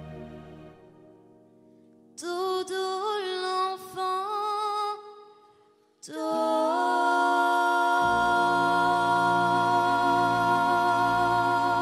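A cappella vocal trio singing the end of the song. A chord fades out, a short sliding vocal phrase comes about two seconds in, and a long held closing chord follows from about six seconds in, with a low bass note joining it about two seconds later.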